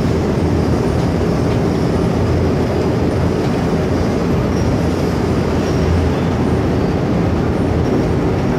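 Loud, steady low rumbling noise with a faint hum, unbroken and without distinct strikes.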